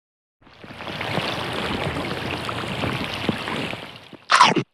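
Water sound effect: a rushing, bubbling wash of running water that swells in after about half a second and fades out near the end. Then a quick swoosh that drops sharply in pitch.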